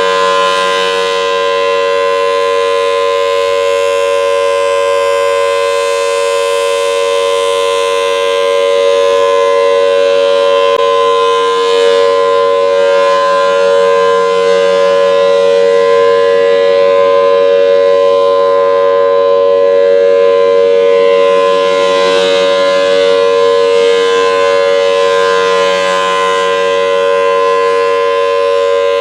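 Federal Signal Thunderbolt 1003 outdoor warning siren sounding its steady alert signal during a test. It is a loud, sustained wail held at one pitch, with slight swells in loudness.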